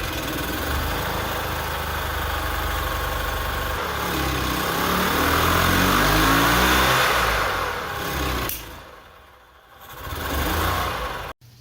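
1998 EZ-GO TXT golf cart's gas engine running, speeding up over a few seconds and then dropping away. It picks up briefly once more before cutting off suddenly near the end.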